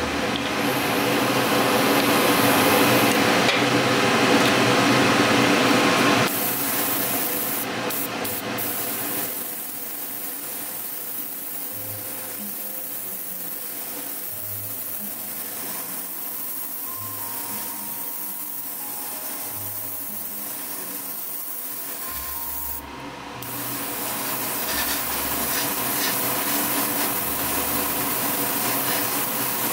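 Gravity-feed airbrush hissing as it sprays paint onto a metal spoon in passes, louder for the first six seconds and again toward the end, with the air cutting off briefly about eight seconds in and again around twenty-three seconds.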